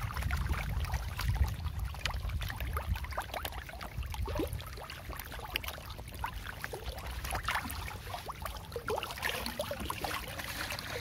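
Dense school of Nile tilapia splashing and slapping at the water surface in a feeding frenzy: a constant, irregular patter of small splashes over a low steady rumble.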